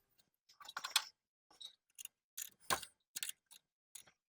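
Irregular light clicks and small knocks of engine parts and hand tools being handled during carburetor reassembly, one sharper knock about two-thirds of the way through.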